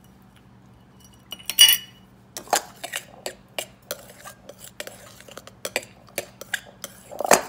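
Metal spoon stirring flour and sugar in a glass mixing bowl, scraping and clinking against the glass in quick, irregular clicks. A louder clink comes about a second and a half in and another near the end.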